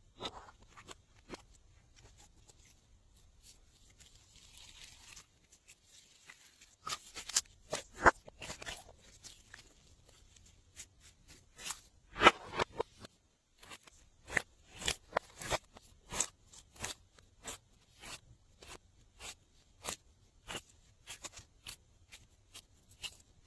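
Glossy slime being squeezed and poked by hand, giving sharp wet clicks and crackling pops. The clicks are scattered at first, then thicken into crunchy clusters, and in the second half come fairly evenly, about one or two a second.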